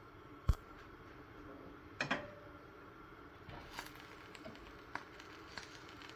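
Kitchen utensils and cookware handled at the stove: a sharp knock about half a second in, a double knock around two seconds, then a few lighter clicks.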